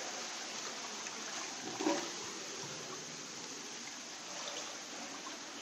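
Steady hiss of running water in a flooded house, with one brief louder sound about two seconds in.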